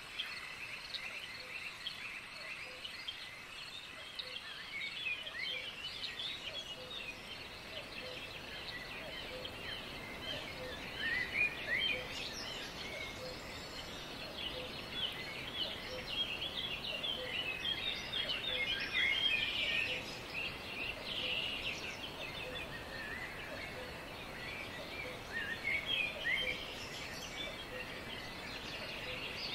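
Nature ambience of many small birds chirping over a steady hiss, busiest in the middle and near the end, with a faint low note repeating a little more than once a second.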